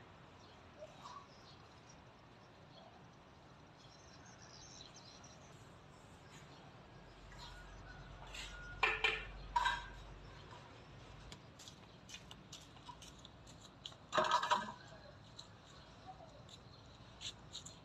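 Faint steady background noise, broken by a few short sharp clicks or clinks: two a little after the middle and a louder cluster lasting about half a second near the end.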